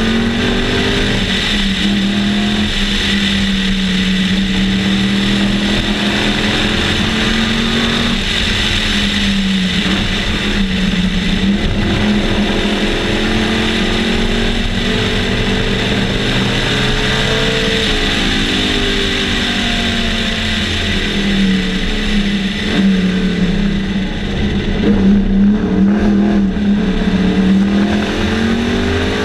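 Sunbeam Tiger race car's Ford V8 at racing speed, heard from the cockpit. The revs climb and drop repeatedly as it is driven hard, over a steady rush of wind and road noise.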